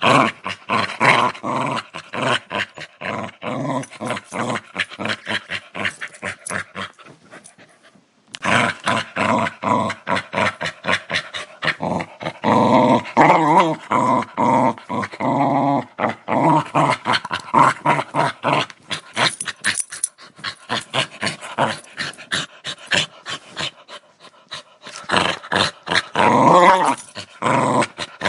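Dog growling aggressively, a rough, rapidly pulsing growl that rises and falls in pitch, with a short break about eight seconds in.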